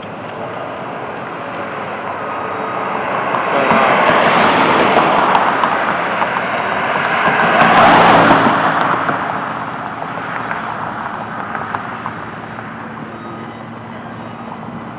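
Road traffic: vehicles passing close by, their engine and tyre noise building from about two seconds in to a peak near eight seconds, then fading back to a steady traffic hum.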